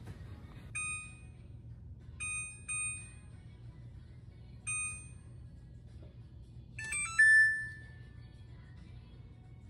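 Oven control panel beeping as its buttons are pressed to set the preheat temperature: four short beeps, then, about seven seconds in, a quick run of tones ending in a held tone about a second long.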